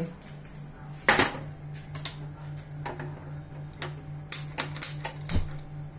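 A steel saucepan set down with a knock on a gas hob's grate, followed by sharp clicks from the burner knob's igniter, coming in a quick run in the second half as the burner is lit.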